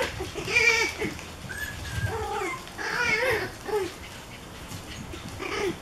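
Pomeranian puppies yipping and whining while play-fighting, a string of short high-pitched calls that bend up and down in pitch.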